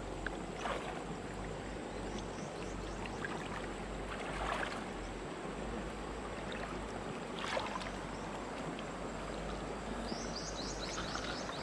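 River water sloshing and swirling around people wading waist-deep, with a few short splashes as a gill net is lifted and worked by hand. A brief run of high chirps comes near the end.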